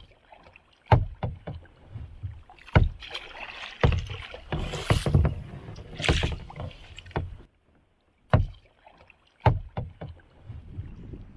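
Kayak paddle strokes in lake water: a sharp splash roughly every second, with water swishing between strokes and a brief lull near the end.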